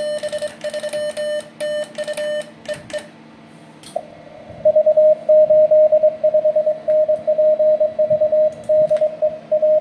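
Morse code (CW) tone at about 600 Hz keyed in dits and dahs. For the first three seconds it is the operator's own sending on a bug paddle, heard while transmitting as a harsh, overtone-rich tone. After a gap of about a second and a half filled with receiver hiss, another station's reply comes in through the receiver as a cleaner tone at the same pitch.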